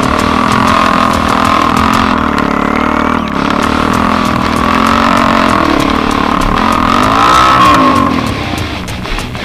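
Quad ATV engine running under throttle while riding. Its pitch climbs and then drops back, loudest about seven seconds in, as the rider revs it.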